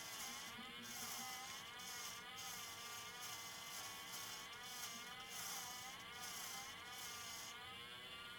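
Small electric motor of a watchmaker's lathe running with a whine that wavers slowly in pitch as a hand graver cuts into a spinning piece of maple. A steady hiss of the cutting is broken by short gaps. It stops abruptly at the end.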